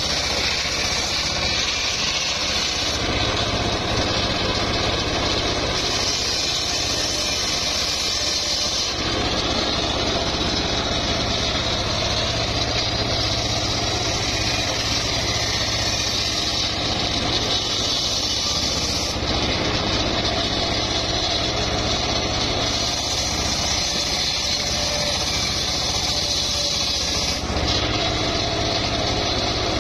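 Homemade table-mounted circular saw, driven by an engine, ripping a mahogany log lengthwise into rafter boards. The blade and motor run loud and steady, and the sound shifts several times as the wood is fed through.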